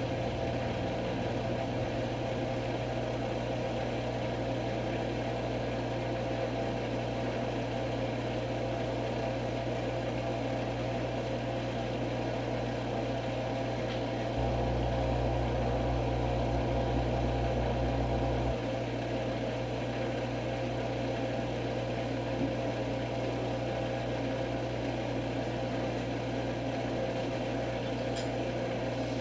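Washing machine drum spinning at maximum speed: a steady hum and whirr, with a louder low rumble for about four seconds midway.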